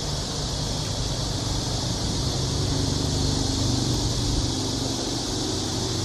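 A steady, high chorus of cicadas over a low engine hum, which grows a little stronger about two seconds in.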